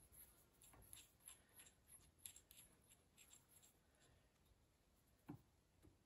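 Near silence, with faint quick ticking and clicking of a hand wrench on the bolts of a hydraulic motor housing as they are tightened, then a couple of soft knocks about five and six seconds in.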